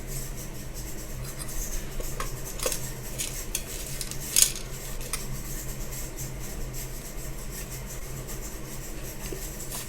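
Faint clinks and taps of a spoon and pot as cinnamon is added to the water for a herbal decoction, with one sharper clink about four seconds in, over a low steady hum.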